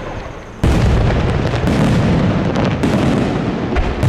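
Aerial fireworks bursting: a dense barrage of booms and crackling begins suddenly about half a second in and keeps going, with sharp cracks standing out within it.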